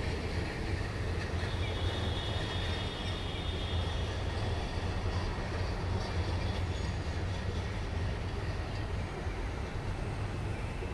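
A train rumbling steadily past, with a faint high wheel squeal in the first few seconds.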